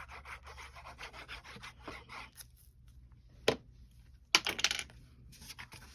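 Cardstock being handled and rubbed on a work surface: a run of light rubbing strokes, a sharp tap about three and a half seconds in, then a louder papery rustle about a second later.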